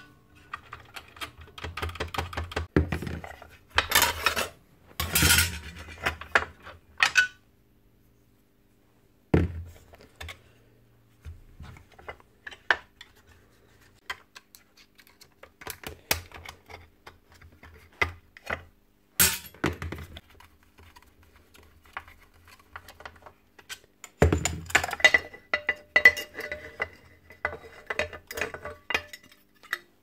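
Metal clinks, knocks and clatter of a cordless circular saw's parts and hand tools being handled on a hard bench as the saw is stripped down, with its blade, washers and guard plate coming off. The sounds come as scattered clicks and short scrapes with a brief pause partway through.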